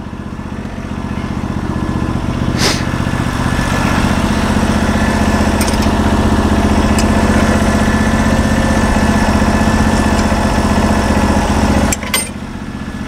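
Portable sawmill's gasoline engine running steadily at idle, growing slightly louder over the first few seconds. A couple of short knocks sound over it, one early and one near the end.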